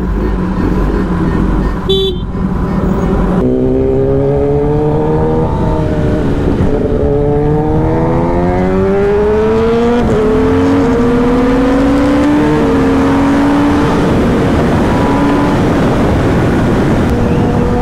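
Kawasaki Ninja ZX-10R inline-four pulling through the gears. The engine note rises, drops back at each upshift and climbs again, then settles to a steady cruise.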